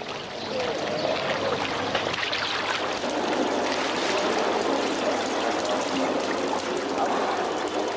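Water splashing steadily in a stone courtyard fountain, an even rushing trickle that builds over the first second and then holds.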